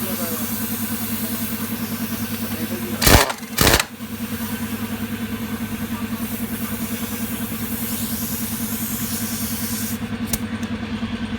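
An engine running steadily with an even, rapid pulse, and two short, loud bursts about half a second apart, about three seconds in.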